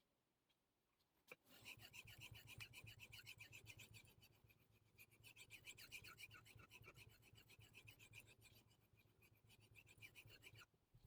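Damascus steel carving knife blade scraping back and forth in quick, rhythmic strokes across a fine 5000-grit Naniwa Superstone waterstone during freehand sharpening. The strokes start after a short click about a second and a half in and pause briefly near the end.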